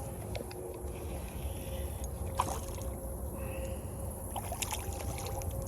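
Light splashing and lapping of water with scattered small clicks, over a steady low rumble.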